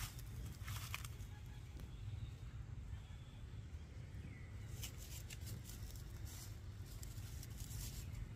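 Short bursts of rustling over a steady low rumble, from macaques shifting about on dry leaf-littered ground.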